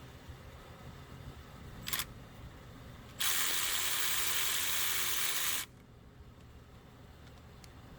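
Pneumatic ratchet run at the 10mm bolt on the alternator's ground cable: a short blip of air hiss about two seconds in, then a steady hissing run of about two and a half seconds that cuts off suddenly.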